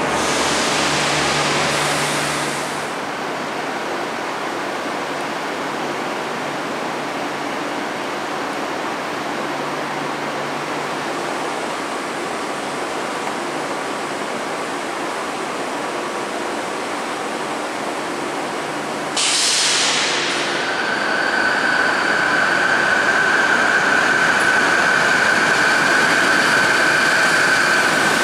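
Electric trains in a large covered station: a steady rumbling noise of trains. About two-thirds of the way in it turns suddenly louder as a passenger train moves along the platform, with a steady high whine over it to the end.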